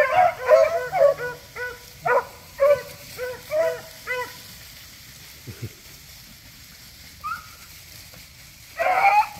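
Beagles giving a quick run of short yips and barks, about three a second, for the first four seconds, then one louder bark near the end.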